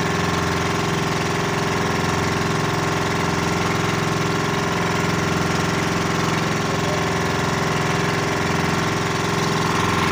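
Small diesel boat engine running steadily at an even speed.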